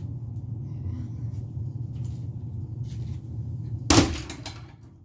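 A crowbar striking the ceiling fan once, a loud sharp hit about four seconds in that rings on for about half a second, over a steady low hum with a few faint knocks.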